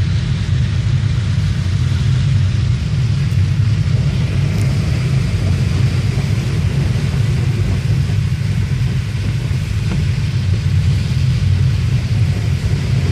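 A car driving, heard from inside the cabin: a steady low rumble of engine and road, with an even hiss of the tyres running through slush and standing water.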